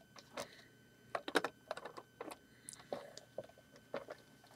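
Plastic LEGO pieces clicking and tapping as the built boat model is handled, a dozen or so short, uneven clicks with a quick run of them about a second in.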